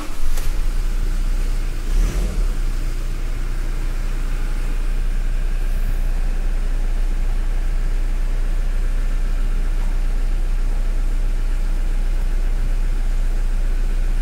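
Toyota Innova Crysta engine just started, heard from inside the cabin: it surges briefly twice in the first couple of seconds, then settles to a steady idle.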